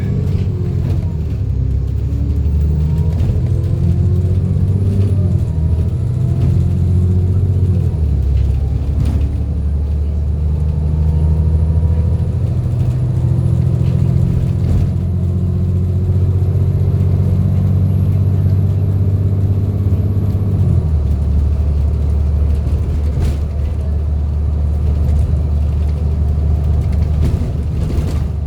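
Alexander Dennis Enviro400 double-decker bus running under load with a strong low engine note and a high whine, the 'hoover' sound. The whine rises, holds, then falls away with the engine note about two-thirds through, as at a gear change or easing off.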